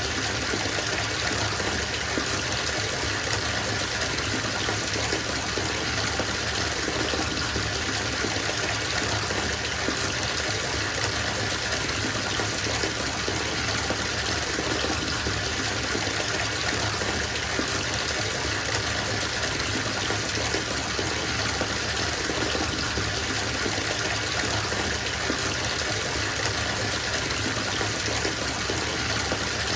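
Water from the tap gushing steadily into a bathtub as it fills, an even, unchanging rush.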